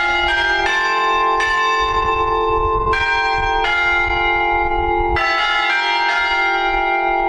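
Church tower bells chiming the hour at close range: a tune of struck bell notes at different pitches, each ringing on and overlapping the next.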